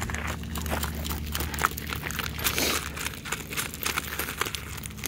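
Welsh pony trotting on gravel in harness, its hooves crunching and clopping in an irregular run of strokes, with the light two-wheeled cart's wheels rolling over the gravel as it passes close by.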